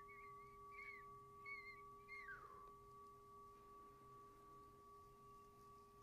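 Near silence: two faint steady tones held throughout, with a few faint warbling chirps in the first two and a half seconds, the last one gliding down in pitch.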